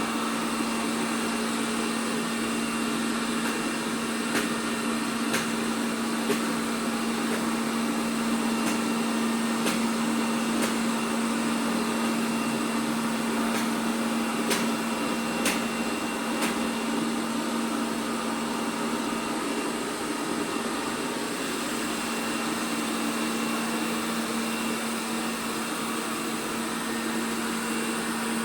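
ELARI SmartBot Lite SBT-002A robot vacuum running steadily, a constant motor hum with a fan rush over it. A few short clicks come in small runs about a second apart.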